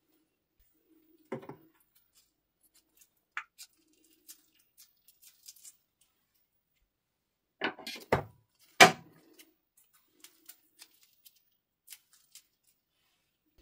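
Clear slime being squeezed out of plastic bags onto a plastic tray: sparse faint crinkles and clicks, with a louder burst about a second in, a cluster of louder handling sounds a little before eight seconds, and the loudest one just before nine seconds.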